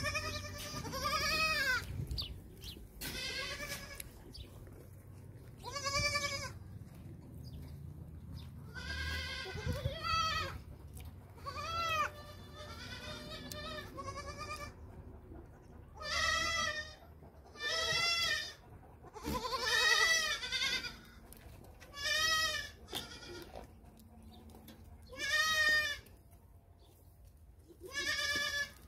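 Several goats bleating again and again, a call every second or two, each about half a second to a second long with a pitch that rises and then falls; some calls overlap.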